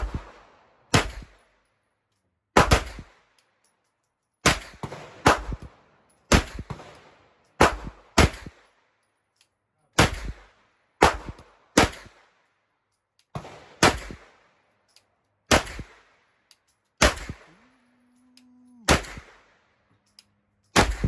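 Gunshots on an outdoor range: about twenty single shots fired at an irregular, deliberate pace of roughly one a second, each sharp crack followed by a ringing, echoing tail.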